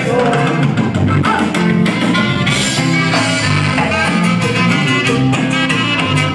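Live norteño band music, played loud and without a break.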